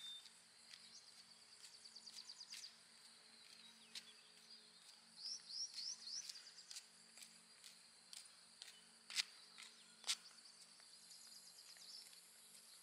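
Faint outdoor quiet with small birds chirping and trilling now and then, a few quick rising chirps in the middle, over a steady high hiss. Two sharp clicks a second apart in the last third are the loudest sounds.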